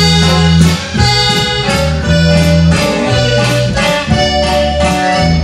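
Dance music playing, with a deep bass line moving in long notes of about a second each under sustained higher melody notes.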